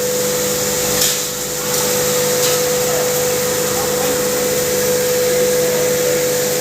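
Turmeric pulverizer (hammer mill) running steadily, a constant hum with an airy rush like a vacuum cleaner, with a knock about a second in and a lighter one a little later.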